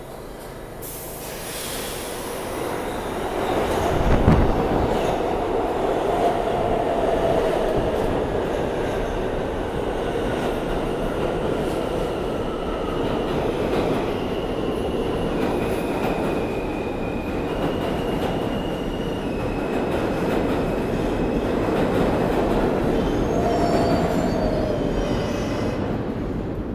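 New York subway F express train of R160 cars pulling into the station. Its rumble builds as it comes in, with a sharp bang about four seconds in. Then comes steady rail and running noise with high wheel squeal and slowly falling whines as the train slows along the platform.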